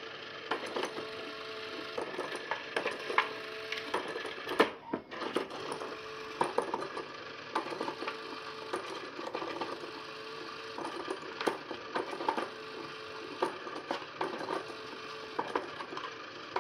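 Battery-powered motor of a Pop n Play motorised peek-a-boo cat toy running, its hum coming in stretches of about a second with short breaks, under a steady clatter of plastic clicks and taps from under the dome. One sharper knock about four and a half seconds in, with more taps as a cat paws at the holes.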